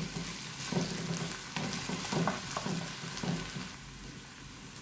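Diced potatoes sizzling in hot oil in a frying pan over a medium flame, stirred with a wooden spatula that scrapes and pushes them around in several short strokes. The stirring stops about three-quarters of the way through and the steady sizzle goes on.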